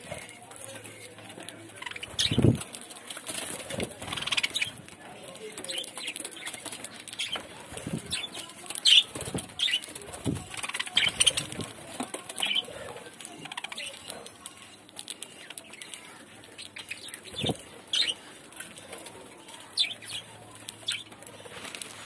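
Budgerigars feeding on a pile of fresh coriander close to the microphone: leaves rustling and stems being pecked, with short wing flutters, scattered sharp clicks and a few brief chirps.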